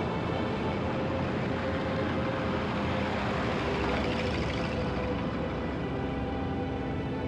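Military truck engine running as it drives past, a steady rumble that swells in the middle.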